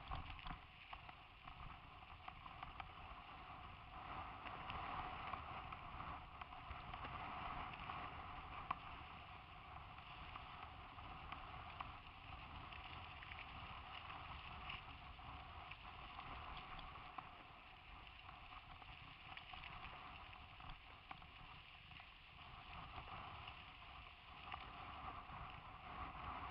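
Faint, steady riding noise of mountain bikes on a dirt track, picked up by a helmet-mounted camera: a low rumble with many small knocks from the rough ground, under a constant hiss.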